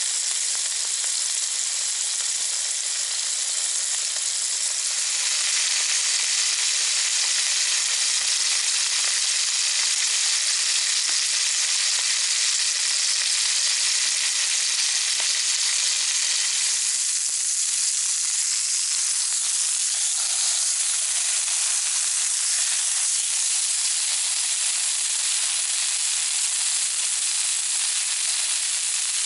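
Two beef steaks sizzling in hot oil in a Trangia Storm Cooker frying pan heated by an alcohol burner: a steady, dense frying hiss.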